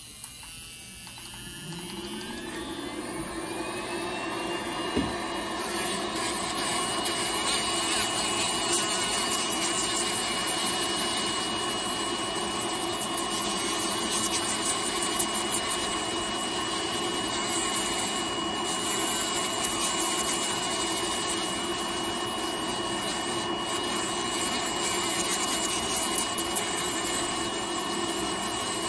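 Podiatry electric nail drill spinning up in the first few seconds to a steady high whine, its burr grinding down a thickened, hardened toenail.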